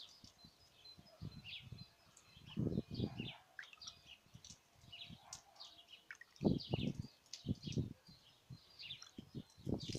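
Small birds chirping in many short, high notes throughout, with a few dull low bumps, the loudest about six and a half seconds in.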